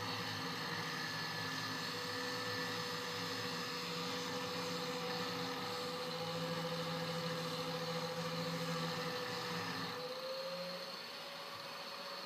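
A motor running steadily with a constant whine, which shifts slightly higher in pitch about ten seconds in as its lower rumble drops away.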